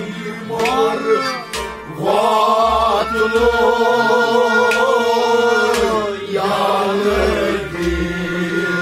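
A male voice singing Kashmiri Sufi kalaam, holding one long wavering note through the middle, over a steady held instrumental tone. Underneath, hand strokes on a clay-pot drum (Kashmiri nout) give low booming thumps and sharp slaps.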